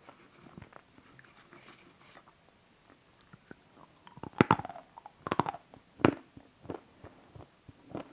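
Crunchy bites and chewing of a chocolate-covered bar, close to the mouth: three loud crunches in the second half, then softer chewing crunches.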